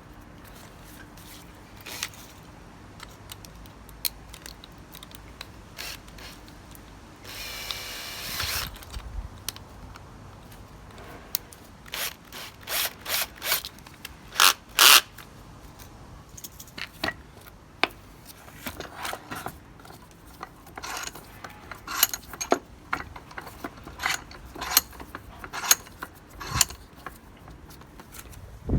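Metal tools and parts handled on a workbench: a run of irregular sharp clicks and clinks, with a brief noisier, rasping burst about seven seconds in.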